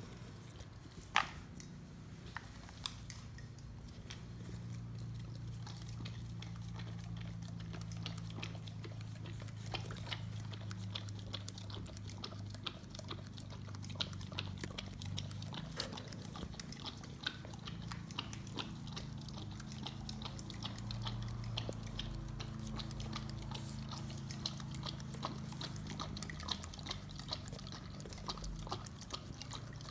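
German Shepherd lapping frothed milk from a small ceramic bowl: a fast, continuous run of wet licks and tongue clicks against the bowl, over a low steady hum. A single sharp knock stands out about a second in.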